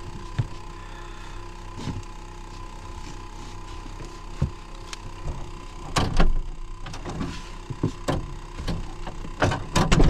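Clicks and clunks of a VW Kombi's sliding door latch being worked and the door opened, loudest about six seconds in and again near the end, over a faint steady tone.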